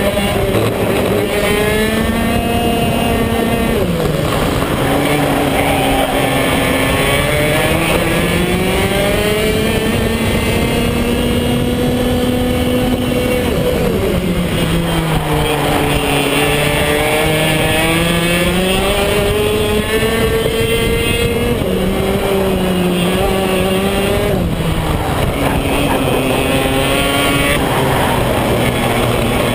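BMB KF2 125cc two-stroke kart engine at racing speed on a Birel chassis. Its pitch climbs slowly on the straights and drops sharply into the corners about four times.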